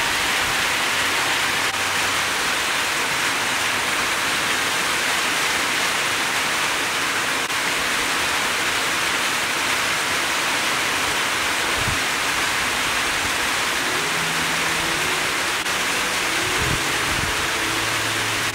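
A steady, even rushing hiss with no breaks, like heavy rain or running water. Faint low tones come in near the end.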